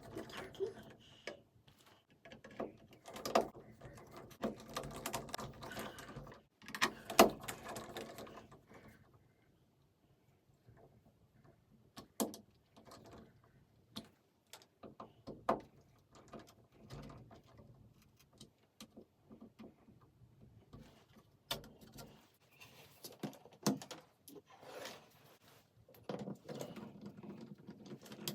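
Scattered clicks, taps and handling noises of plastic outlet and switch faceplates being fitted and their small screws put in, busiest at the start and near the end, with a quiet stretch about nine seconds in.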